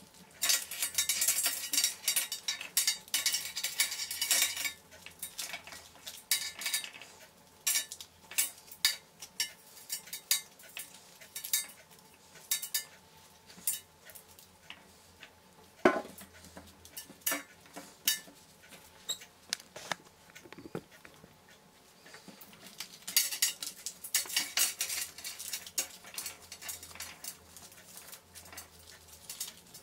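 Pomegranate seeds pattering and clicking onto a stainless steel pot as gloved hands break the fruit apart and pick the seeds out, with the rind tearing. Two busy stretches of rapid clicking, near the start and about three-quarters through, with scattered single ticks between.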